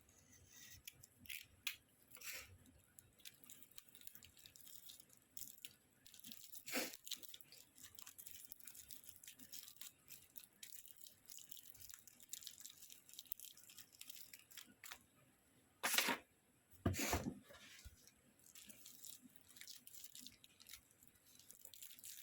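Packaging being handled and opened: crinkling and tearing of plastic and paper wrapping, with scattered small clicks and a few louder rustles, one about a third of the way in and two close together about three-quarters of the way through.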